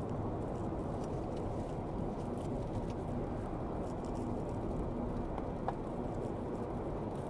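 Steady road and engine noise inside a car's cabin at highway speed: an even low rumble with a faint steady hum.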